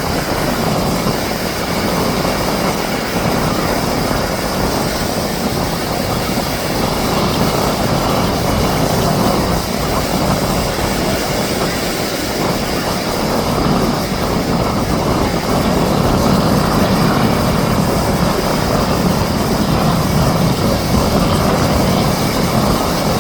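Canadair CL-415 firefighting amphibian's twin turboprop engines droning steadily, growing slightly louder about two thirds of the way through.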